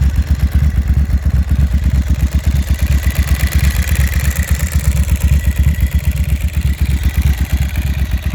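1996 Ducati Monster M900's air-cooled V-twin idling steadily through a Termignoni exhaust, with an even, fast pulsing beat.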